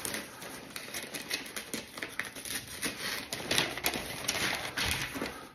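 Cardboard box flaps and paper packing being handled and pulled out: a continuous run of irregular rustles, crackles and scrapes.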